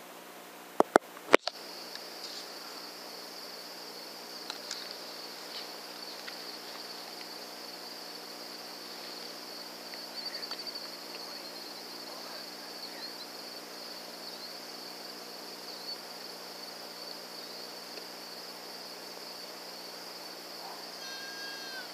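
Steady high chirring of night insects in a field. About a second in come three sharp clicks close together, the loudest sounds here, and a short pitched squeak comes near the end.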